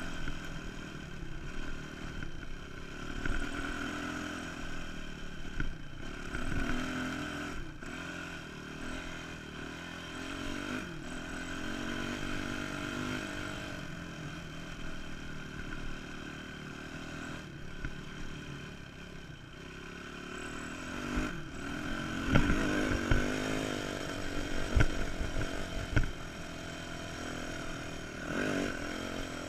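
Dirt bike engine running under way, its pitch rising and falling as the throttle is worked, with several sharp knocks about three quarters of the way through.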